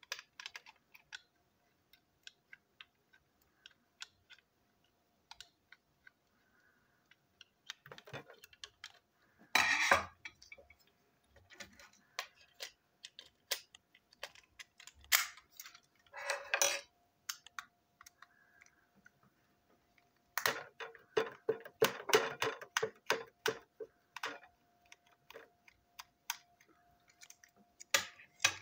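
Small plastic clicks and rattles of a toy engine being handled and unscrewed with a small screwdriver, with louder bursts of clattering about a third of the way in, near the middle and through a stretch in the second half.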